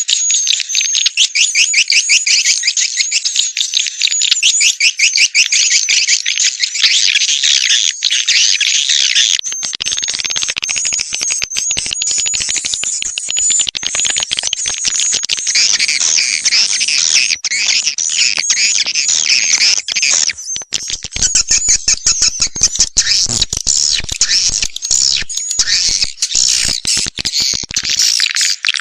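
Swiftlet call track (suara panggil): dense, rapid high-pitched twittering and clicking of white-nest swiftlets, edited into a continuous lure sound for swiftlet houses. A thin high steady tone runs under the twitter and stops about two-thirds of the way through.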